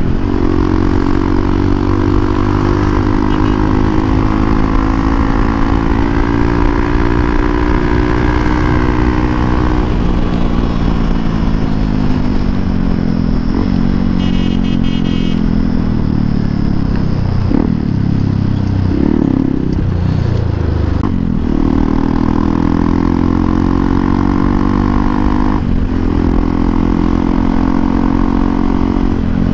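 Hero Xpulse 200 4V's single-cylinder engine running through a Norifumi Noctus T5 aftermarket exhaust as the bike is ridden. The engine note holds steady, drops away about a third of the way in, dips and swells again past the middle, then settles back into a steady note.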